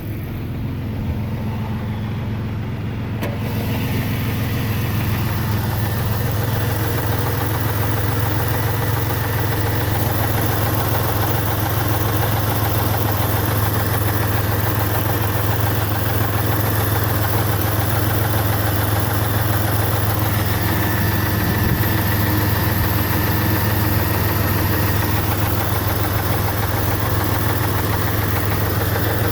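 Jeep Grand Cherokee's 4.0-litre inline-six engine idling steadily with the tick noise the owner is showing. About three seconds in it becomes louder and brighter, as if heard closer to the engine.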